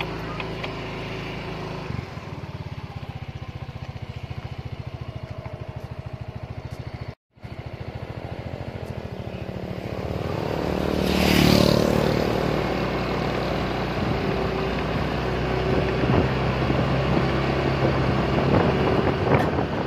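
Motorcycle engine running steadily while riding along a road, with wind on the microphone. About eleven seconds in, a louder rush of noise swells and fades.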